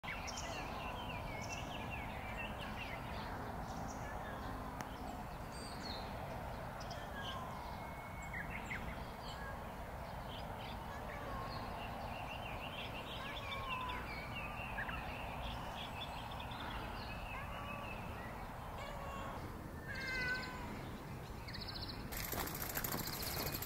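Outdoor background with a steady low hum and many birds chirping and calling in short, scattered notes. A short louder call comes about twenty seconds in, and a high hiss comes in near the end.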